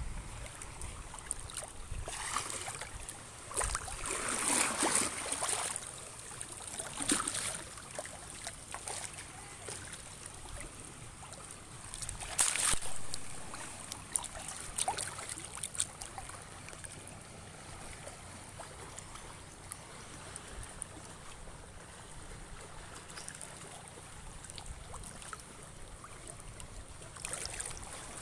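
Small sea waves lapping and washing over a rocky shoreline: a steady hiss of water with several louder swishes as waves break, the loudest about twelve seconds in.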